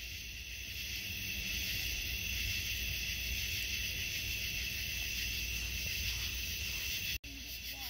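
Steady chorus of night insects, a continuous high-pitched hiss, over a low rumble.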